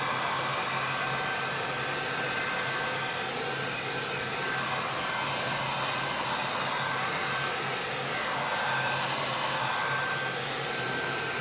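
Handheld hair dryer blowing steadily, drying a fresh coat of liquid latex; a thin steady whine runs through the rush of air.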